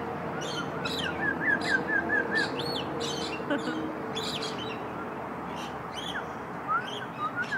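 Birds chirping: scattered short high chirps, with a quick run of about six evenly spaced chirps a little over a second in, over a faint steady hum.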